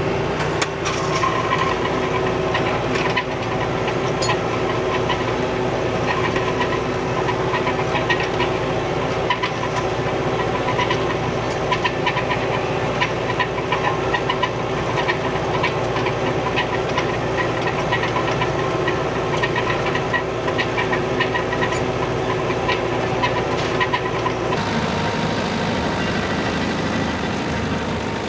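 Old New Holland tractor running steadily, working with its brush puller and mower down, with a constant stream of sharp clicks and rattles over the engine. Near the end the sound changes abruptly to a smoother, hissier engine noise.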